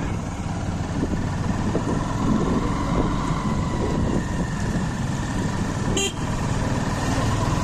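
Motorcycle riding along at low speed, engine running under steady road and wind noise, with a faint steady whine throughout. A brief sharp click or tap comes about six seconds in.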